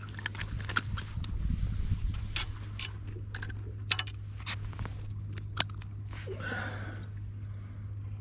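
Irregular sharp clicks and taps, a few a second, from handling a freshly landed pollock and the hook and tackle, over a steady low hum, with a short rustle near the end.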